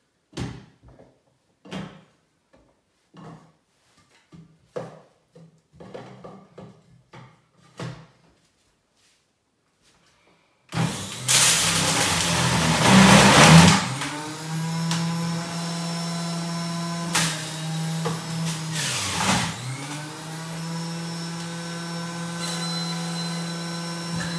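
A few light knocks and clicks, then about ten seconds in an electric centrifugal juicer's motor switches on and runs with a loud, steady hum and whine. Its pitch sags and recovers a few times as fruit and carrots are pushed down the chute and load the motor.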